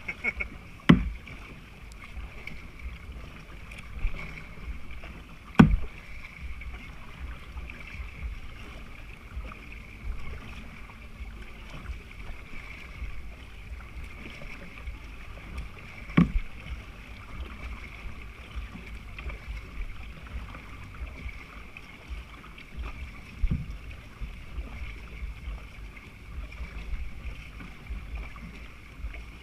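Tandem plastic kayak being paddled, with water lapping and a steady low wind rumble on the microphone. A few sharp knocks break it: loud ones about a second in and near six seconds, then one near sixteen seconds and a softer one later.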